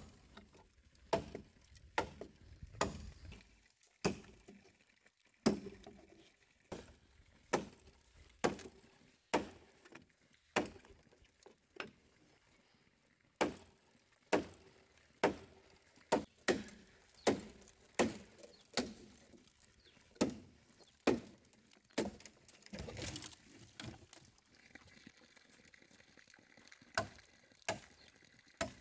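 Machete chopping into a green bamboo culm: sharp, separate strokes about one a second, sometimes quicker, thinning out over the last few seconds.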